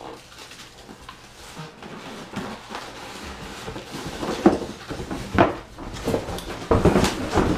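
Cardboard and foam packing being handled and lifted out of a turntable's shipping box: rubbing and scraping with several knocks, the sharpest about four and a half seconds in and a cluster near the end.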